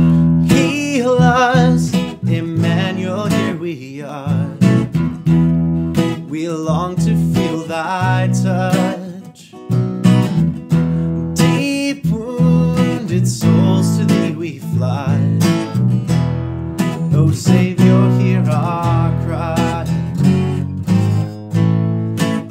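A slow worship hymn played on strummed acoustic guitars over an electric bass, with a wavering melody line above the chords.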